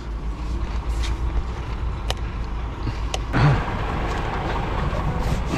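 DAF truck's diesel engine idling with a steady low rumble, with a few sharp clicks and a brief rush of noise about three seconds in.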